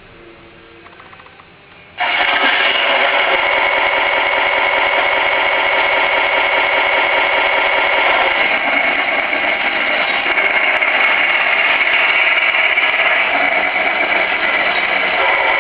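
Electronic sound unit of a 1/16 RC Leopard 1A4 tank playing a simulated tank diesel engine through its small speaker: the engine sound starts abruptly about two seconds in and then runs steadily, with little bass.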